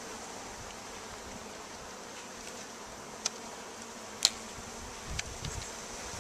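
Honey bees buzzing steadily around comb being handled, with a few sharp clicks, the loudest about four seconds in.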